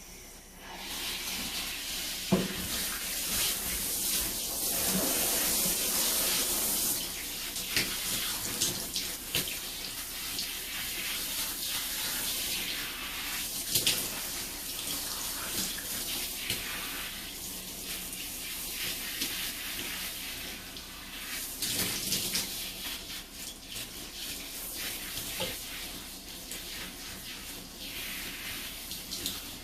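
Water running from a tap into a sink, starting about half a second in, with splashing and a few sharper knocks as something is rinsed under the stream.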